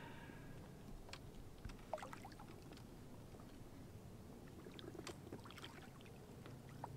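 Faint water splashing as a hooked fish is worked alongside a boat and grabbed by hand at the waterline, with a few small scattered knocks and clicks.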